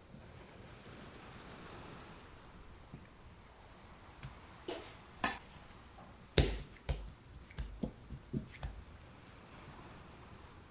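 Kitchen handling sounds: a run of about a dozen short knocks and taps on a work surface or against dishes, the loudest about halfway through, over a faint room hush.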